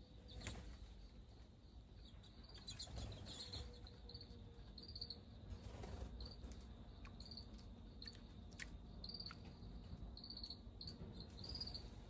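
Faint cricket-like insect chirping: short high chirps repeating about once a second over a faint steady high trill, with a few soft clicks.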